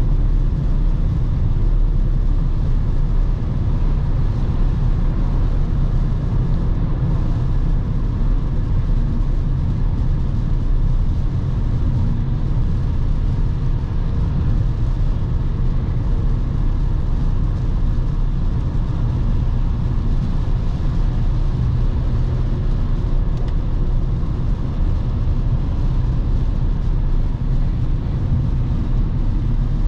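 Volkswagen Passat B8's 2.0 TDI diesel running while the car drives along, heard as a steady low rumble of engine and road noise with no changes.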